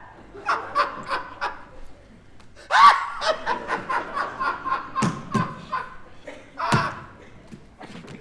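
A man laughing hard in repeated rapid bursts of giggles, the loudest outburst about three seconds in and another near the end.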